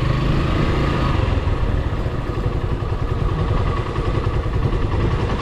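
Suzuki Gixxer SF's single-cylinder engine running steadily while the motorcycle is ridden, with a fast, even exhaust pulse.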